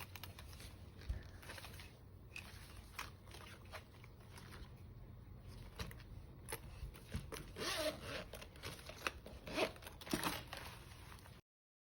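Packaging being handled and opened by hand: irregular crinkling, tearing and small clicks. The sounds grow louder and sharper a couple of seconds before they cut off suddenly near the end.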